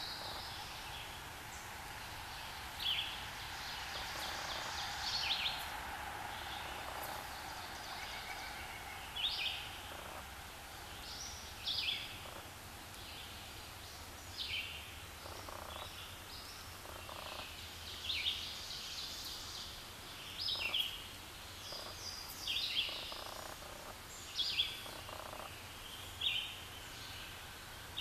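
Woodland birds singing: short chirping phrases repeated every second or two, over a faint steady background hiss that eases off after the first several seconds.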